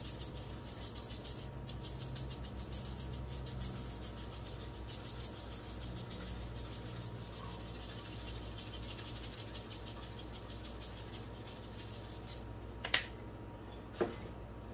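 Seasoning shaker being shaken over raw chicken thighs on a sheet pan: a faint, steady, fine rattle of dry rub. Near the end come two sharp knocks about a second apart.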